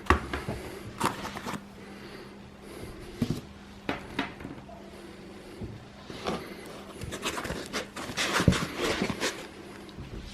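Parts and packaging of a 3D printer kit being handled during unpacking: rustling with scattered sharp clicks and knocks, busier about seven seconds in, over a steady low hum.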